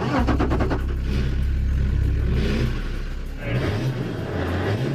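McRae Enduro rally-raid 4x4's engine started from its dashboard start switch: it catches at once with a quick rattle of firing strokes, then runs and is revved a little in the second half.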